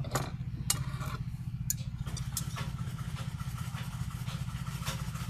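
A small engine running steadily with a low, fast throb. Over it come a few light clicks and scrapes as jute cord is handled and cut with a blade.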